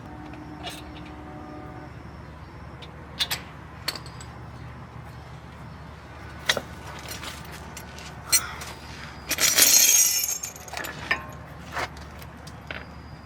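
Scattered light metallic clinks and clicks of brake pads and their metal clips being handled, with a brief louder rushing noise about ten seconds in, over a steady low hum.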